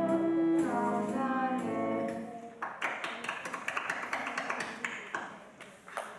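A song ends on held sung notes with instrumental backing; about two and a half seconds in, a burst of hand-clapping applause starts and dies away over the next few seconds.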